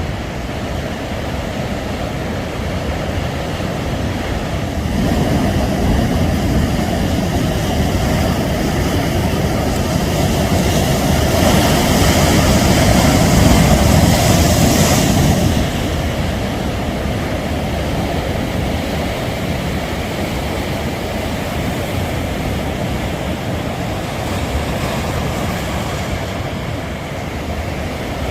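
Ocean surf breaking and washing on a beach, a continuous rushing wash that swells about five seconds in, grows loudest around the middle, then eases back to a steady roar of waves.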